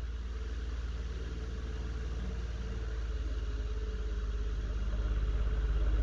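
Homemade ceiling fan, driven by a 24 V brushless photocopier motor run on 12 V, spinning fast after being turned up on its e-bike speed controller: a deep steady hum that grows gradually louder. The maker calls its sound at this speed alarming.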